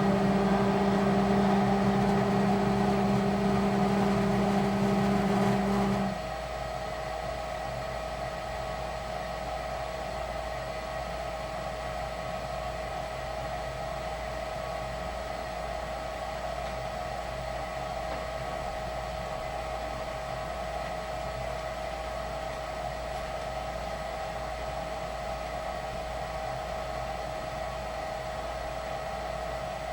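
Lennox furnace running: a loud, steady hum with two low tones cuts off suddenly about six seconds in, leaving a quieter steady fan-like whir with a high whine.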